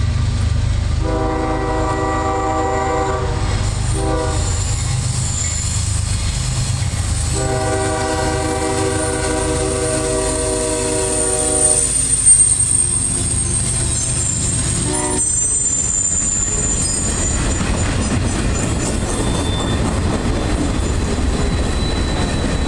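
Lead CSX ES40DC diesel locomotive sounding its air horn: two long blasts, each followed a little later by a short one, over the steady rumble of the engine. In the last third the clatter of the train rolling past grows, with a faint high wheel squeal.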